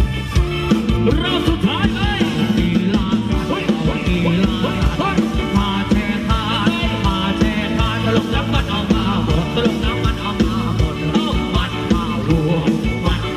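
Live band playing upbeat Thai ramwong dance music with a steady drum beat and electric guitars.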